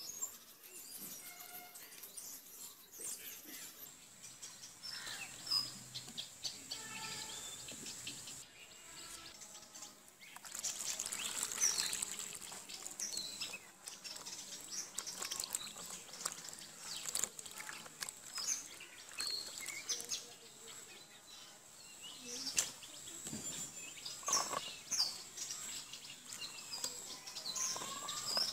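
Small birds chirping, many short calls scattered throughout, over quiet handling noises as pointed gourds are scraped with a knife and then washed in a bowl of water, with a louder stretch of splashing and rubbing about eleven seconds in.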